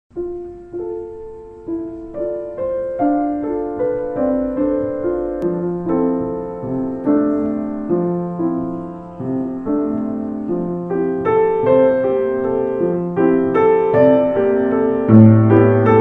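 Background music on piano: struck notes and chords that ring and fade, sparse at first and growing busier and more frequent toward the end.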